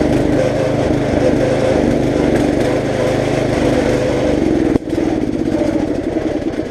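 Riding lawn mower's small engine running steadily under throttle, with a brief sharp break a little under five seconds in before it runs on.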